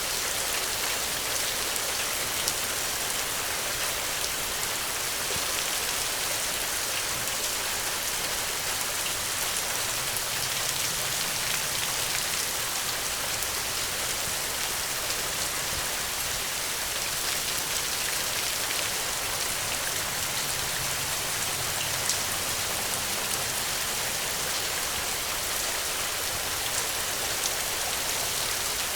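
Steady rain falling on the ground, an even hiss with fine scattered drop patter.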